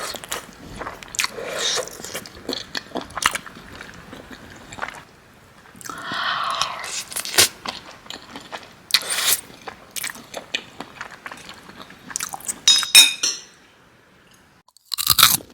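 Someone eating: irregular chewing, crunching and small utensil scrapes and clicks, with a brief ringing clink of metal or ceramic about three-quarters of the way through.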